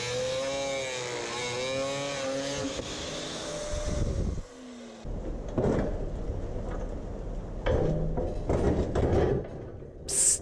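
Angle grinder running inside a steel pipe, its pitch wavering up and down with the load, cutting off about four and a half seconds in. After that come scattered knocks and clunks of heavy metal being handled as a benchtop drill press is set on a welded steel stand, with a sharp click near the end.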